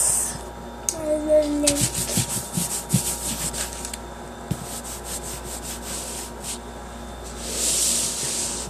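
Hands mixing and kneading slime: rubbing, with two runs of rapid small sticky clicks in the middle.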